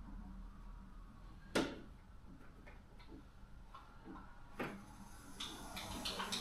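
Chalk line being handled over carpet: two sharp clicks, one about a second and a half in and another about four and a half seconds in, with a few faint ticks, then a faint rustling that builds near the end.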